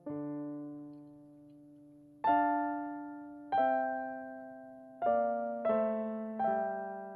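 Solo piano playing a slow Russian folk tune: six struck chords, each left to ring and fade before the next.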